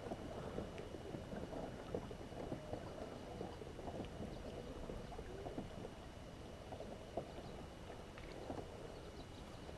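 Faint water movement and small irregular knocks and taps around a Hobie Pro Angler 12 fishing kayak.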